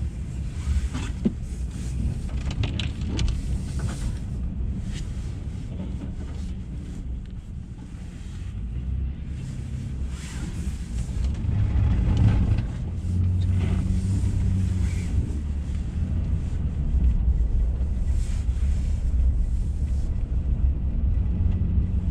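Honda Ridgeline's 3.5-litre V6 running and its tyres working through snow, heard from inside the cabin. The engine gets louder about ten seconds in, then holds a steady note.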